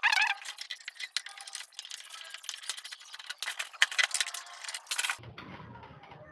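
Quick clicks and rattles of screws, a screwdriver and the TV's plastic back cover as the set is taken apart. About five seconds in the clatter stops, leaving a low hum.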